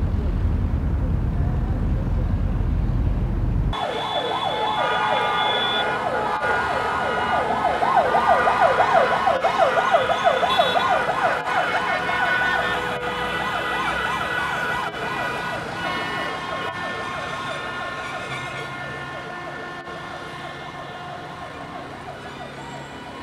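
A low rumble for the first few seconds, then a vehicle siren warbling in fast rising-and-falling sweeps with several steady tones mixed in, slowly fading away toward the end.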